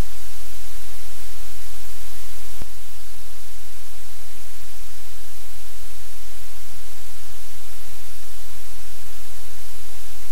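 Loud, steady static hiss with a low electrical hum, from the livecam's audio feed. One faint click about two and a half seconds in.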